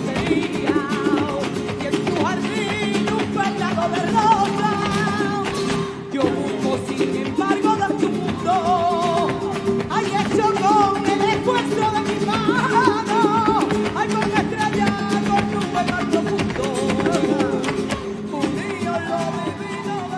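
Background flamenco music: a sung line with wavering, ornamented notes over strummed acoustic guitar.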